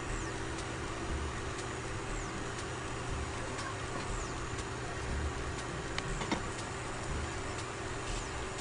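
A pan of water simmering on an electric hot plate, with hot dogs in it: a steady hiss and bubbling, with a light regular ticking about three times a second over it.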